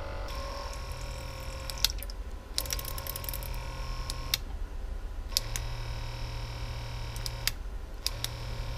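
Small electric smoke-system pump pumping baby oil, humming in short runs: it starts and stops about four times, each run one to two seconds, with light clicks where it switches on and off.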